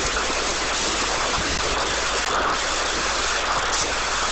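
Steady rushing hiss with no changes or distinct events.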